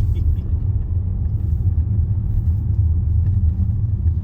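Steady low rumble of a Range Rover's engine and tyres heard from inside the cabin while driving.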